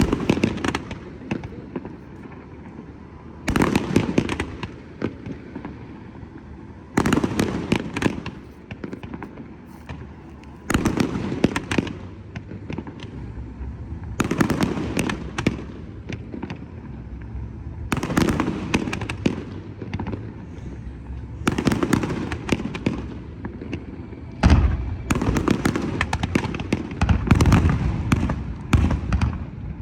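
Fireworks display: volleys of sharp, rapid crackling bangs about every three and a half seconds, each lasting a second or two. About three-quarters of the way through, a heavier, denser barrage starts and keeps going.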